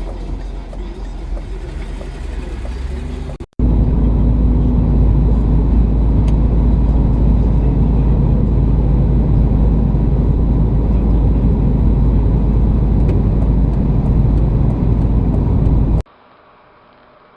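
A car engine running steadily and loudly, close to the microphone, with a deep rumble. It starts abruptly a few seconds in and cuts off suddenly near the end.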